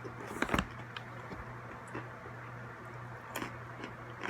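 Crunchy pretzels being chewed: a few sharp crunches and clicks, a cluster about half a second in and another near the end, over a steady low electrical hum.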